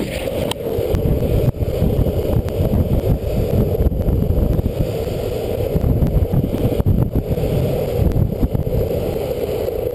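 Steady wind buffeting the microphone of a camera riding a fast downhill longboard run, heard as a dense, unbroken low rumble.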